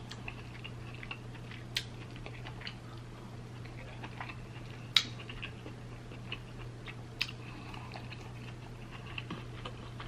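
A person chewing king crab meat with sauce: soft mouth sounds with a few sharp clicks, over a steady low hum.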